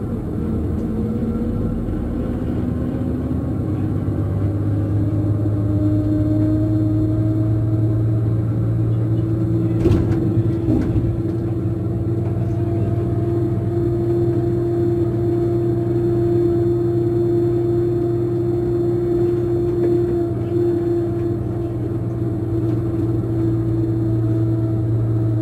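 Scania K420 coach's diesel engine under way, climbing in pitch over the first several seconds, then running at a steady speed. A single knock comes about ten seconds in.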